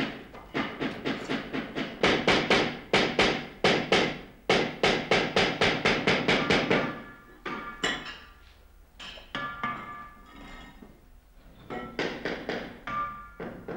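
Music with a fast, even run of sharp notes, about five a second, that thins out to a few sustained tones about seven seconds in and picks up again near the end.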